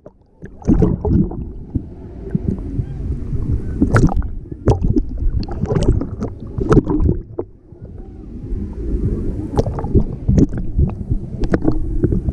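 Water sloshing and splashing close to a GoPro, heard muffled, with irregular knocks and splashes throughout.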